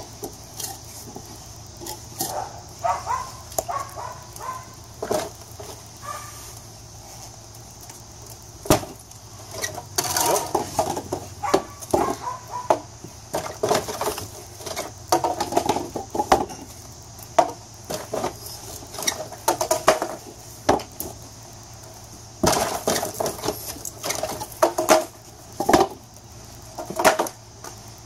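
Irregular knocks and clunks as a wooden board, levered down under a car's sill, presses on a motorcycle tire's sidewall to break the bead loose from the rim. The knocks come thickest in two busy spells, about a third of the way in and near the end.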